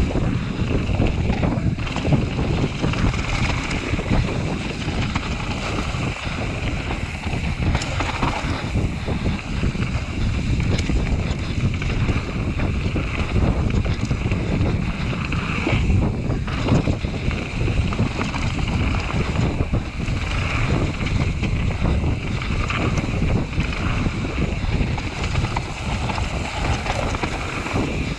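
Wind buffeting the camera microphone over the steady rumble and rattle of a mountain bike riding a downhill trail.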